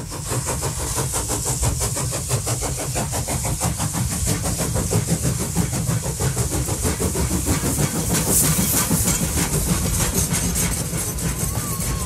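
Steam locomotive running at speed: a fast, even chuffing over a low rumble, with a steady hiss of steam.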